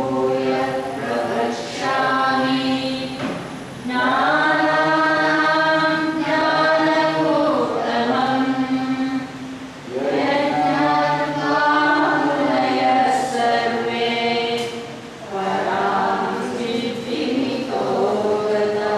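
Several voices singing a chant together in long held phrases of several seconds each, with short breaks between phrases.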